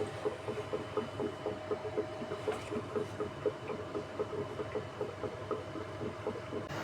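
A pot of liquid bubbling on the boil, with soft, irregular pops about four to five times a second over a steady hum.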